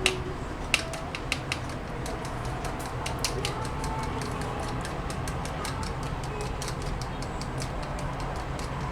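An egg being beaten by hand, the utensil clicking rapidly and steadily against the side of the container.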